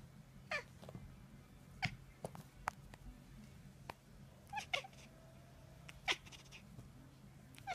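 Domestic cat giving a string of short, irregularly spaced meow-like calls, each one brief with a bending pitch.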